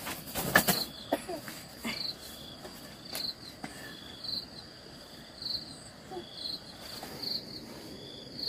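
Insects chirping: a steady high trill with a short chirp repeating about once a second. A few short knocks or rustles come in the first second or so.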